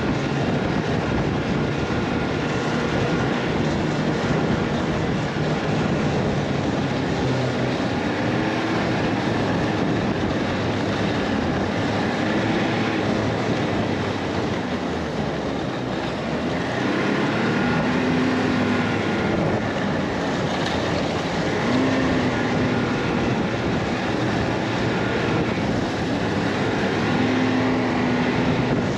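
A vehicle engine running under way, its pitch rising and falling as the revs change, over a steady rush of noise.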